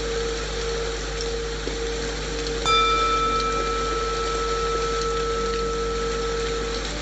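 Steady rain white noise under a low, sustained singing-bowl tone. A singing bowl is struck a little under three seconds in and rings on with several overtones that slowly fade: the bowl cue that paces the breathing.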